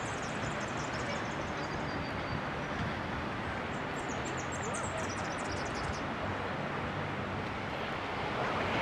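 Steady rushing noise of fast-running floodwater in the Ovens River, with a low hum underneath and birds chirping briefly at the start and again about four to six seconds in.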